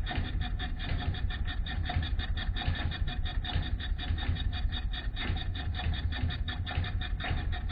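Jawa ČZ 150/352 single-cylinder two-stroke engine fitted with a transparent cylinder head, running with a rapid, even beat of many pulses a second and a heavy low thud under it.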